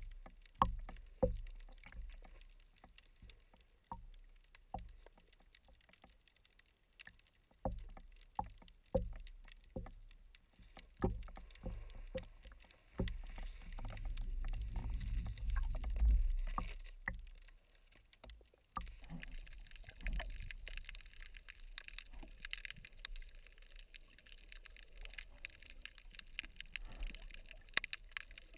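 Underwater sound picked up through a camera housing: scattered sharp knocks and clicks, then a low rumble of churning water for a few seconds around the middle as the diver kicks his fins, then a steady water hiss for the last third.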